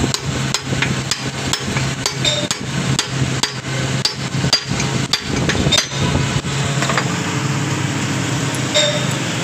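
Hand hammer striking a metal part of a Suzuki Jeep manual steering box on a steel plate: a run of sharp metal-on-metal blows, roughly two a second, that stops about six and a half seconds in. A steady low hum runs underneath.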